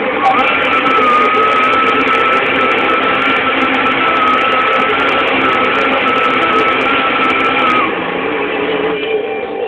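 Countertop blender motor running steadily with a high whine. It starts just after the beginning and cuts off about eight seconds in.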